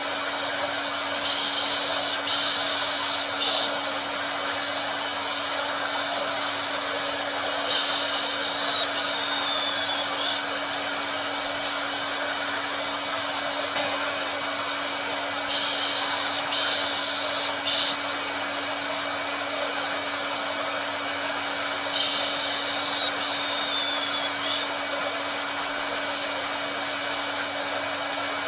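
Hair dryer running steadily, a constant rush of air over a low motor hum. About every six to seven seconds a brighter, hissier patch swells for a couple of seconds and then drops back.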